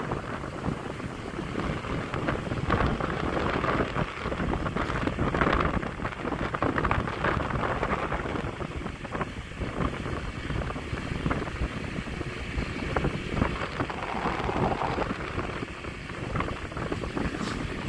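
Wind buffeting the microphone over the rumble of a moving vehicle, in uneven gusts with no steady engine note.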